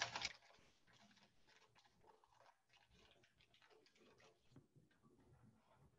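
Near silence: a brief crinkle of the paper wrapper being peeled off a stick of butter right at the start, then only faint small ticks and rustles.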